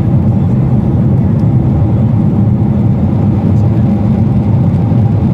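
Steady low-pitched cabin noise of a jet airliner in cruise flight: engine and airflow noise heard from inside the passenger cabin, even and unbroken.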